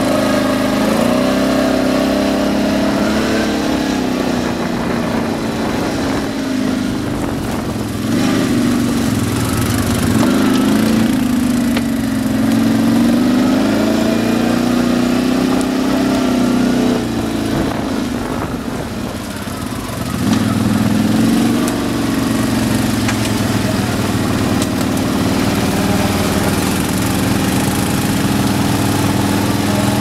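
ATV (quad bike) engine running while riding, its pitch rising and falling as the throttle is worked. It eases off briefly about two-thirds of the way through, then picks up again.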